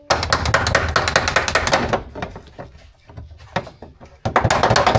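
A wrench working a nut: a rapid run of loud clicks, which stops about two seconds in and starts again near the end.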